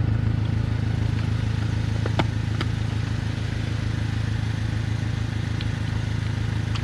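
A truck engine idles steadily, used as a jump source for a tractor's flat battery. A couple of sharp metallic clicks about two seconds in and another near the end come from distributor parts being handled.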